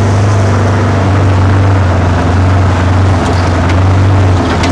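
Side-by-side ATV's engine running steadily while driving along a dirt track: a steady low drone with noise from the ride.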